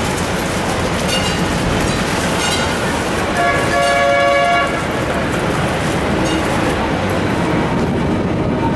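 Hong Kong double-decker tram running, with a steady rumble of wheels on rails. A tram's bell (the "ding ding") rings for about a second, some three and a half seconds in, the loudest sound here.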